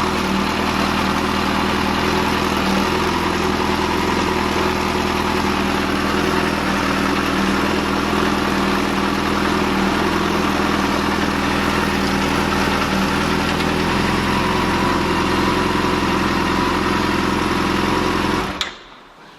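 Yamaha FZ6S's 600 cc inline-four engine idling steadily, then cutting off suddenly near the end.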